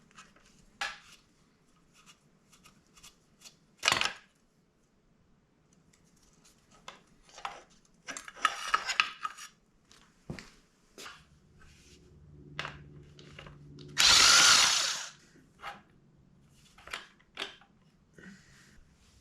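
Hand tools and metal parts clicking and knocking while a Honda CRF150R dirt bike is taken apart, with a quick run of rattling strikes midway. The loudest sound is a power tool running for about a second, a little past the middle.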